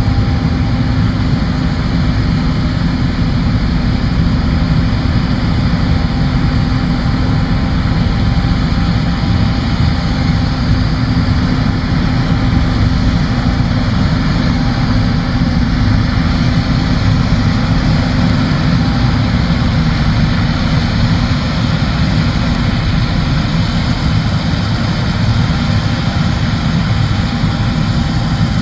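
John Deere S-series combine harvester running steadily under load: a loud, even engine and machinery drone with a low hum and a few steady tones.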